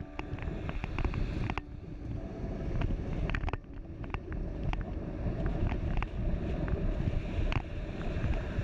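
Wind buffeting the microphone of a bike-mounted camera, over a steady low road and traffic rumble, with scattered sharp ticks and rattles.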